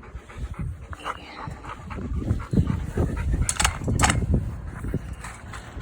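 Dogs eating dog food: irregular chewing and mouth sounds, with two sharp clicks about three and a half and four seconds in.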